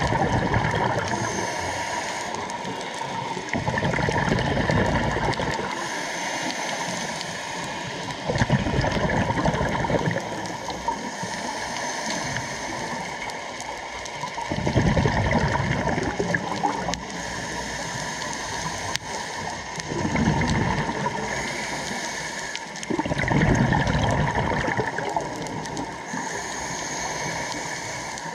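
Scuba diver breathing underwater through a regulator: exhaled bubbles rush and gurgle out about every five seconds, with a hissing inhale between them.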